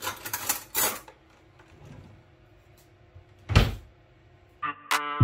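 Knocks and scrapes of kitchen work on a worktop: a quick cluster of clicks in the first second and one heavier thump about three and a half seconds in. Background music with a beat starts near the end.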